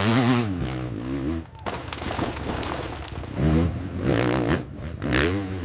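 Hill-climb motorcycle engine revving hard in two spells, its pitch wavering rapidly up and down as the throttle is worked against fading traction.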